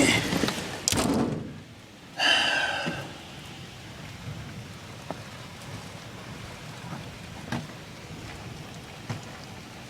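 Storm wind roaring, cut off about a second and a half in with a knock as a door shuts. A brief squeak follows, then a much quieter background with a few faint ticks.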